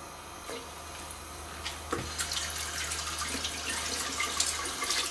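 A battered frozen Snickers bar deep-frying in hot oil: a sizzle with crackling and spitting. It grows louder and busier about two seconds in, as the bar goes into the oil.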